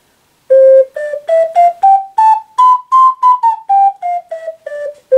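Wooden alto ocarina in C played: a one-octave scale of separately tongued notes, climbing step by step and then stepping back down. It starts about half a second in, and a long low note is held near the end.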